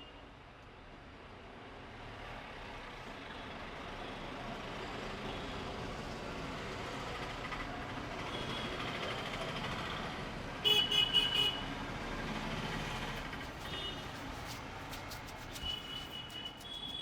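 Road traffic going by, with a vehicle's noise building over the first few seconds and several short horn toots; the loudest is a quick run of about three honks about eleven seconds in. A few sharp clicks come near the end.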